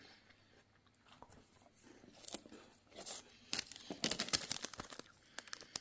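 Clear plastic wrapper of an individually packed matcha cookie crinkling as it is handled, in sharp irregular crackles that grow busier from about three and a half seconds in.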